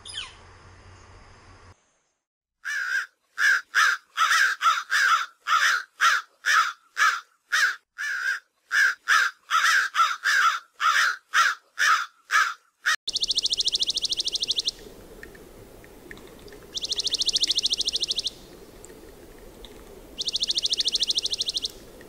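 American crows cawing over and over, about two caws a second for some ten seconds. Then a dark-eyed junco sings three even, rapid musical trills, each lasting about a second and a half, with short pauses between them.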